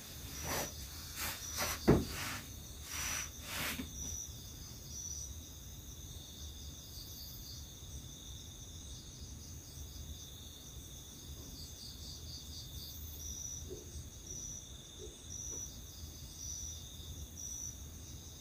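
Night crickets and other insects keep up a steady high ringing, with a chirp pulsing above it about once a second. In the first few seconds there are a few rustles and bumps of bedding on the hut's plank floor as the sleeper turns over, loudest a sharp knock about two seconds in.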